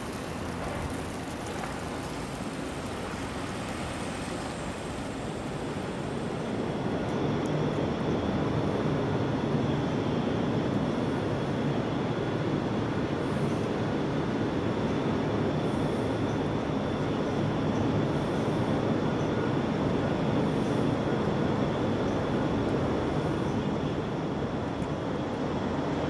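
Steady low rumble of city traffic, growing louder about six seconds in and then holding even.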